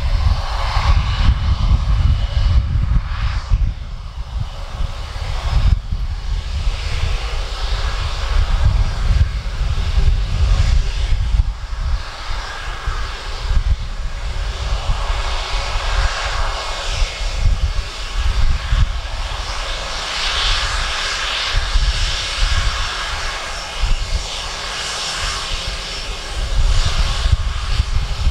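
Jet engines of an Airbus A320-family airliner running at low taxi power as it rolls past: a steady jet whine and hiss over a low, uneven rumble.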